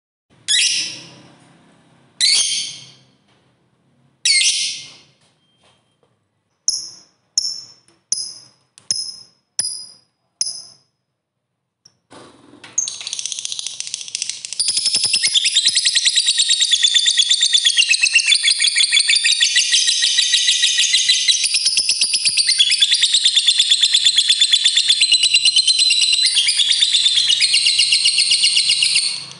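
Lovebird calling: three loud, harsh high calls about two seconds apart, then six short quick chirps (its 'ngetik'), then a long unbroken chattering trill (the 'ngekek panjang') starting about twelve seconds in and lasting over fifteen seconds.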